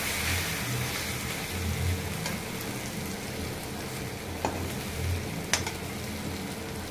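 Chopped taro leaves coated in spiced gram flour sizzling in hot oil in a kadhai while a spatula stirs them, with three sharp clicks of the spatula against the pan.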